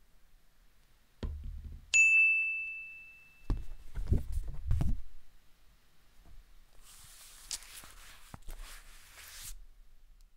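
Cartoon sound effects: a soft low thump, then a single bright ding that rings and fades over about a second and a half, the cue for a sudden idea. A cluster of low thumps follows, and later a few seconds of scratchy hiss.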